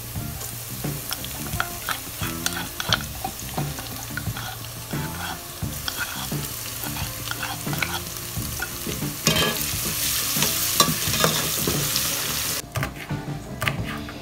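Sliced onions sizzling in hot oil in a steel pot, with a metal spatula scraping and clinking against the pot as a paste is stirred in. The sizzle grows louder about nine seconds in and drops away suddenly near the end.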